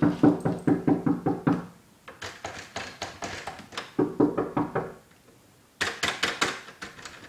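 Laughter in quick, pulsing bursts, about six a second: one fit that stops about a second and a half in, another from about two to five seconds, and a short burst near the end.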